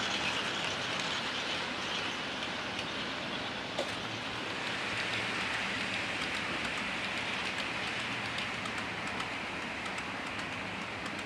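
HO-scale model train running along the track: a steady whirring hiss of small metal wheels on the rails and the locomotive's little motor, with one small click about four seconds in.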